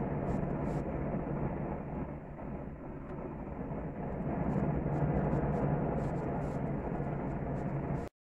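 Gas grill's burners running with a steady, low rushing noise, with faint crackles from a tri-tip searing on the grates over the flames. The sound drops out completely for a moment near the end.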